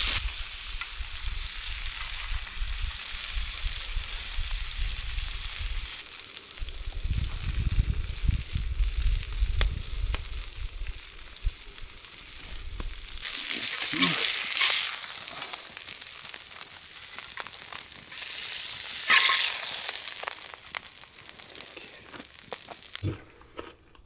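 Burger patties topped with cheese sizzling on a steel griddle over a wood campfire, a steady frying hiss that cuts off near the end.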